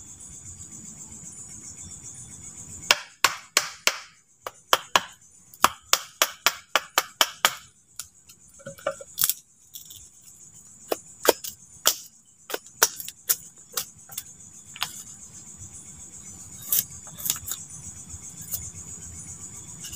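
A machete blade chopping at a wooden stick: a quick run of about a dozen sharp knocks a few seconds in, then scattered single strikes. Under it runs a steady high-pitched drone of night insects.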